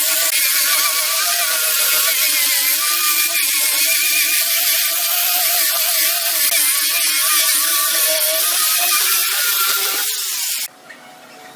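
Handheld electric power tool running steadily under load, its motor pitch wavering slightly as it works the wood, then cutting off suddenly about ten seconds in.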